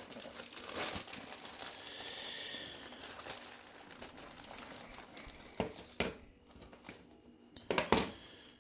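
Plastic packaging crinkling and rustling as it is handled, easing off about two-thirds of the way through, with a few sharper crackles near the end.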